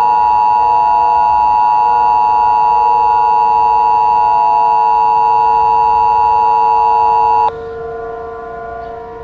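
Emergency Alert System attention signal: a loud, steady two-tone alarm that cuts off suddenly about seven and a half seconds in. A quieter steady drone of several tones continues underneath.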